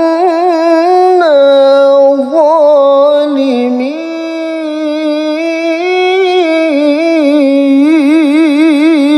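A male qari reciting the Quran in the melodic mujawwad style. He draws out one long ornamented phrase, stepping his pitch up and down between held notes, with a fast quivering trill near the end.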